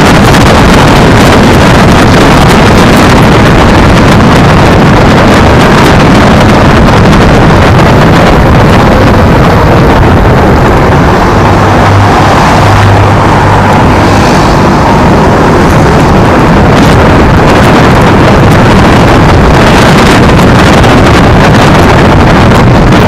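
Loud, steady wind buffeting and road rumble on a camera riding low on a moving Gtech Z9 electric scooter, with a brief low hum about twelve seconds in.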